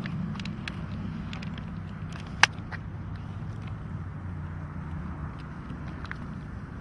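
Steady low rumble of a running vehicle, with scattered light clicks and one sharp click about two and a half seconds in. The sound cuts off suddenly at the end.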